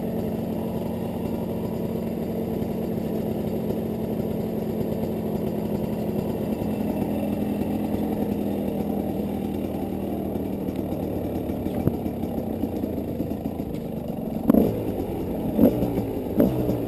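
Dirt bike engine running steadily while riding along a trail. Near the end come four short, louder bursts.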